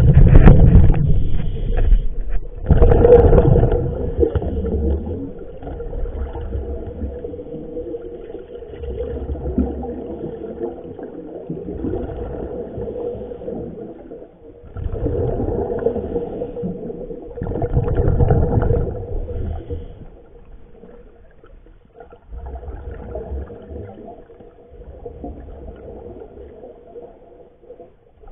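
Muffled underwater sound through a submerged camera: a faint steady hum with repeated low rumbling surges every few seconds, typical of a scuba diver's exhaled bubbles. The surges are loudest in the first few seconds.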